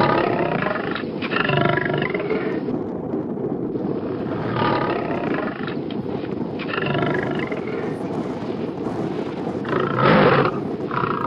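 Lion roaring: a run of repeated roars a few seconds apart, over a steady background rumble.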